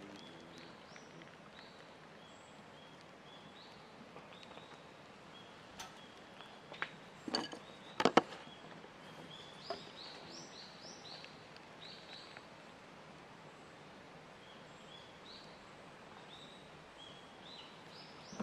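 Small birds singing, repeated short high notes, over a steady outdoor background. Sharp knocks and clicks come about seven to eight seconds in and are the loudest sounds, with single clicks near six and ten seconds.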